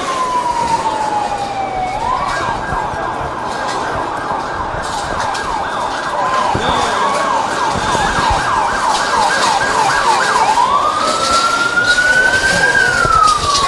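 Emergency vehicle siren sounding. A falling wail gives way to a fast yelp for several seconds, then the wail rises and falls again, getting a little louder in the second half.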